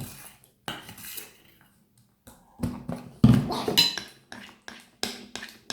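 A utensil knocking and scraping in a bowl as thick slime is stirred, in irregular strokes with short quiet gaps between them.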